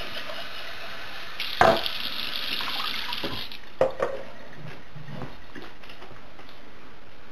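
Water running and splashing in a kitchen sink, with a few sharp knocks; the water stops about three and a half seconds in.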